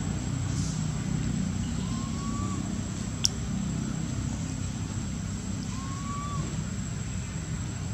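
Steady low rumble of background noise, like distant road traffic, with a faint short whistled call twice, about two and six seconds in, and one sharp click a little past three seconds.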